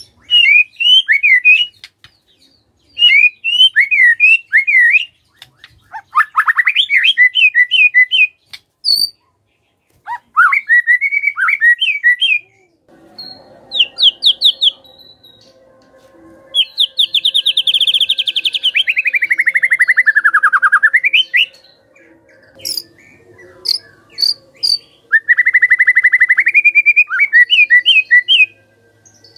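White-rumped shama singing: a series of fast trilled phrases, each two to three seconds long, with short pauses between them. About halfway comes a long phrase of rapid notes sliding down in pitch, then a few sharp high chips before a rising trill; a faint steady hum runs underneath from about halfway.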